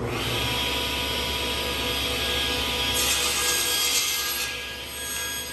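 SawStop table saw running steadily with its blade spinning. About three seconds in, the blade cuts through a board pushed on a cross-cut sled, adding a brighter hiss for about a second before the saw runs on without load.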